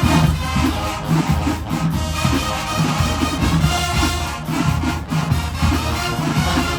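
HBCU marching band playing: brass over a steady low beat of drums and sousaphones.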